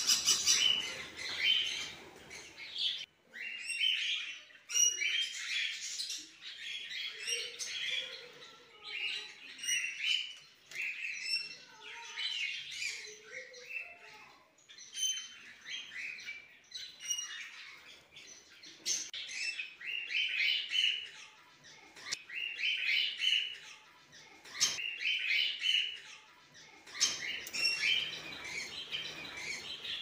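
Small caged finches, a colony of long-tailed finches, chirping and calling, with many short high chirps coming in overlapping clusters a second or two apart.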